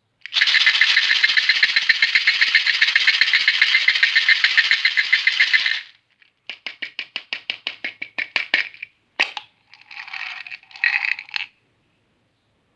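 Fruitex chew candies rattling steadily for about six seconds, then a run of separate clicks, then two short rustling bursts near the end.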